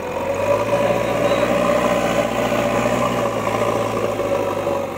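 JCB backhoe loader's diesel engine running steadily as the front loader bucket scrapes and pushes loose soil.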